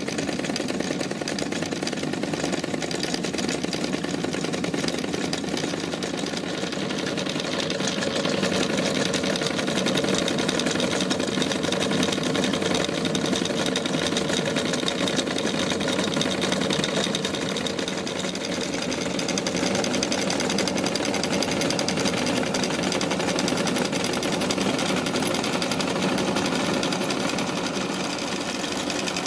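Miniature Wilesco toy machine shop running under steam from a D-20 steam engine: belts, pulleys, shafting and a small press turning together in a steady, fast mechanical clatter.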